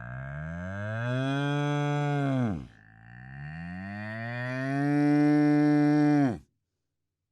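Two long, low animal calls, one after the other, each lasting about three seconds, the pitch rising gently through the call and then dropping off sharply at its end.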